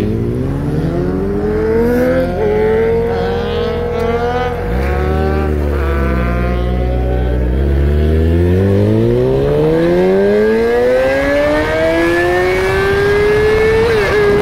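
Yamaha R6 inline-four engine heard from the saddle under hard acceleration, its revs climbing quickly. The pitch falls about five seconds in and holds lower for a few seconds, then rises steadily again, with a quick dip near the end.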